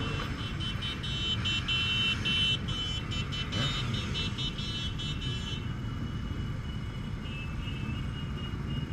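Many motorcycle engines running at low speed in a slow-moving pack, the Honda Gold Wing 1800's flat-six among them. Over them a high-pitched tone pulses rapidly for about the first half, then settles into one steady high tone.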